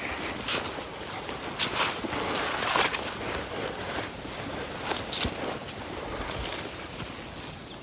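Wind blowing on the microphone, with a few brief rustling noises.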